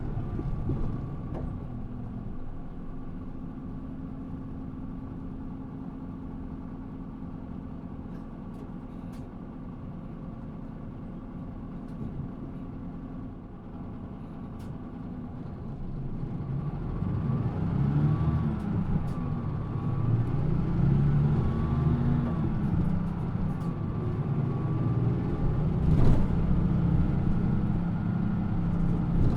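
Mitsubishi Fuso PA-MK25FJ bus engine heard from inside the bus, running quietly and steadily at first, then about halfway through pulling harder, with its pitch rising and falling as it accelerates, kept at low revs. A single sharp knock comes near the end.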